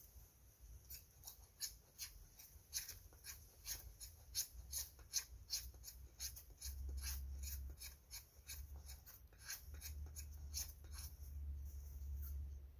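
A knife blade scraping a stick in short, quick strokes, about three a second, shaving off tinder for a fire. A low rumble runs underneath from about halfway.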